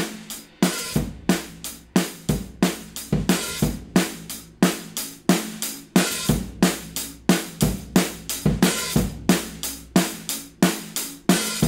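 A drum kit loop with kick, snare, hi-hats and cymbals, playing a steady beat of hard hits. It is heard through compressor and analog-style saturation plugins, which the producer says add punch, heat and harmonic distortion.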